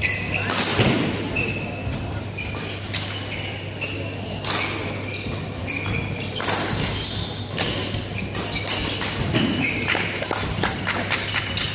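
Badminton singles rally: shoes squeaking on the court mat, footfalls, and the sharp taps of rackets striking the shuttlecock, over a steady low hum in the hall.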